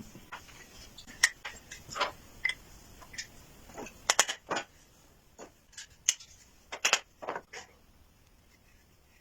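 Irregular light clicks and knocks, a dozen or so short sharp taps with gaps between, thinning out near the end.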